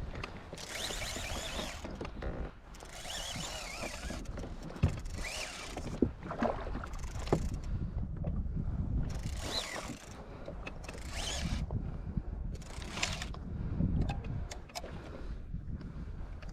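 Fishing reel being cranked in repeated bursts while a hooked fish is reeled in, with a few sharp clicks.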